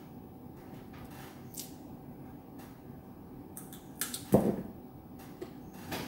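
Salak (snake fruit) flesh being pulled apart and handled with small faint clicks, then one loud bite into the crisp fruit about four seconds in.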